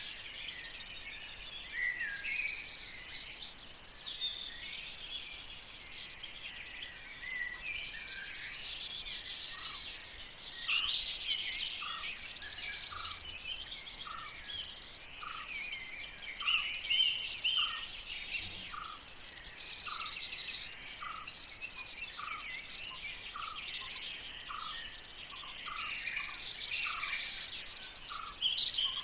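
Several birds singing together, a dense mix of chirps and warbling phrases, over a steady outdoor hush. From about a third of the way in, a short lower note repeats roughly once a second.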